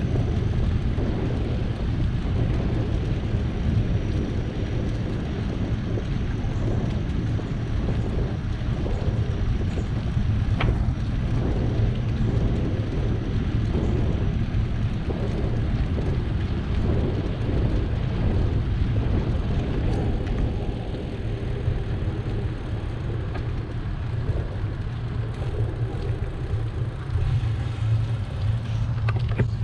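Steady low wind rumble buffeting the microphone of a camera riding on a moving bicycle, mixed with the noise of the bike's tyres rolling along the path.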